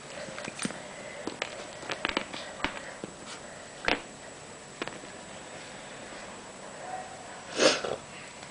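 Puppy sniffing and snuffling at a toy shoe, with scattered light clicks and taps of its claws and the shoe on a tile floor. A sharper click comes about halfway through, and a louder breathy burst near the end.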